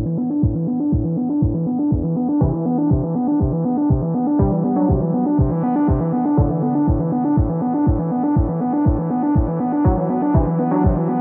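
Background electronic music: a steady kick drum at about two beats a second under synthesizer keyboard chords, growing brighter from about two and a half seconds in.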